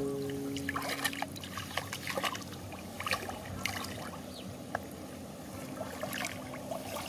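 Hands groping through shallow muddy water among grass while feeling for snails, with irregular small splashes and trickling drips.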